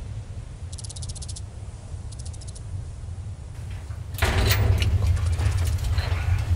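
Soundtrack of a film playing over room speakers: a low steady rumble with brief runs of fast, faint high ticking, then, about four seconds in, a sudden much louder wash of noisy sound over heavy bass.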